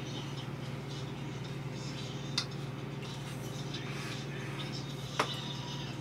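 Quiet room tone with a steady low hum, a scatter of faint ticks, and two sharp clicks, about two and a half and five seconds in.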